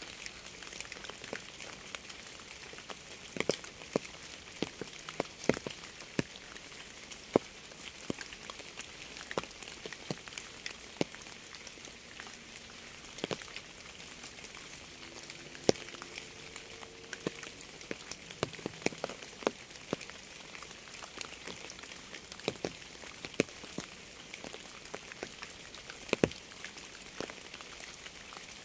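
Steady rain with many irregular sharp taps of individual drops striking a hard surface, some taps much louder than the rest.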